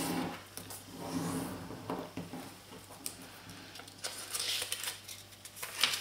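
Origami paper being folded in half and creased by hand on a cutting mat: irregular paper rustling and light crinkling, with brief crisp swishes near the end as the sheet is handled.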